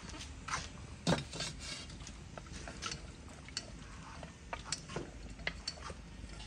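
Light clicks and knocks of kitchen pots and utensils being handled, irregular and scattered, with one louder knock about a second in.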